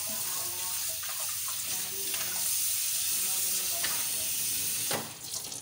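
Kitchen tap running into a sink, a steady hiss that stops about five seconds in when the water is turned off.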